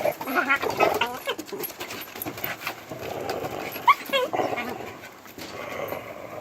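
Dog whining and yipping in play, with a run of short high calls in the first second and a sharp rising yelp about four seconds in.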